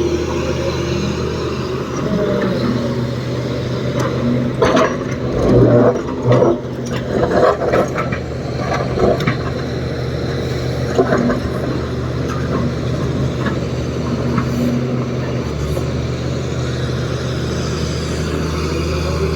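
Heavy diesel engine of an excavator running steadily, with a run of knocks and clanks from about four to ten seconds in.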